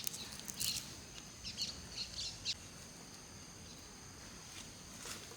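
Birds chirping: several short, high chirps in the first two and a half seconds, then quieter, over a faint steady high-pitched background drone.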